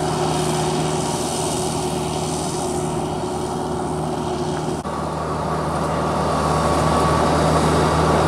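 Kubota diesel engine of a homemade crawler-track rotary tiller running steadily under load while it churns a wet rice field. The engine runs smoothly, like a farm tractor, with a slight shift in tone about five seconds in.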